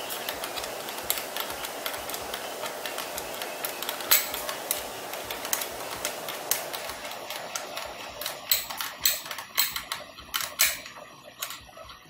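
Metal clicking and clinking of an open-end wrench on a bolt at a scooter's rear brake caliper as the bolt is tightened: many small irregular clicks as the wrench is turned and set back on the bolt head. The clicks grow louder and more spaced in the last few seconds, as a steady background noise fades out about seven seconds in.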